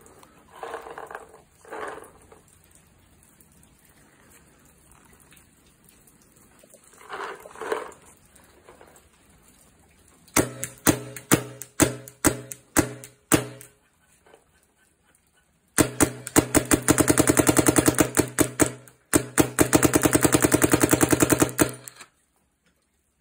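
Shocker AMP electropneumatic paintball marker firing: a string of separate shots about ten seconds in, then two bursts of rapid fire, each about three seconds long.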